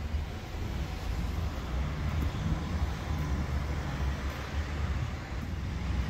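Outdoor urban street ambience: a steady low rumble with a faint hiss above it.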